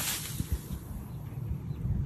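Wind buffeting the microphone as an uneven low rumble, with a soft thump about half a second in.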